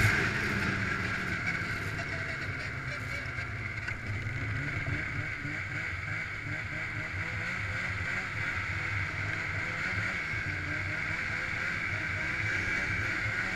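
Snowmobile running at a steady trail cruise, heard from on the sled itself: an engine drone with a strong higher band above it. It is a little louder at the very start, then eases and holds steady.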